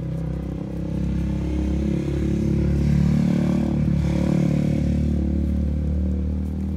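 Car engine running close by, a steady low hum that grows louder to a peak about halfway through and then eases off.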